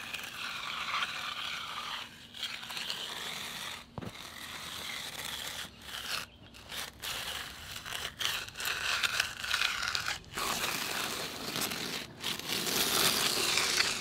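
Steel hand edger scraping along the edge of a freshly poured, still-wet concrete slab against the form board, rounding the slab edge. A rough gritty hiss in several strokes with short breaks between them.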